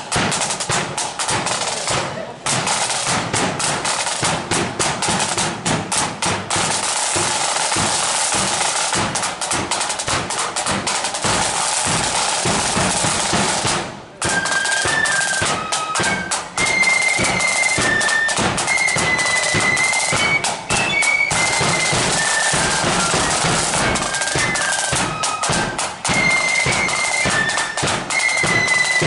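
Marching flute band: side drums and a bass drum play a beat on their own for the first half, then after a short break about halfway through, the flutes come in with a tune over the drums.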